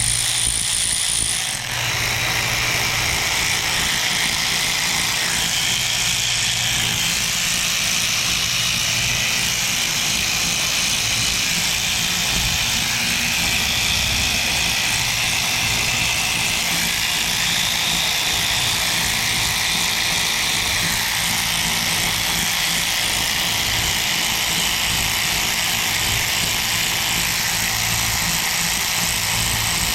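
A large electric fan runs steadily with a whooshing hiss and a low hum. It starts abruptly.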